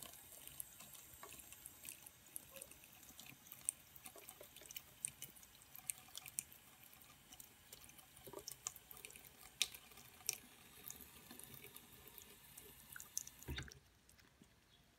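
A thin stream of tap water running from a bathroom faucet into the sink, with many small splashes and ticks where a kitten's head is in the stream. The running water stops suddenly near the end, just after a low thump.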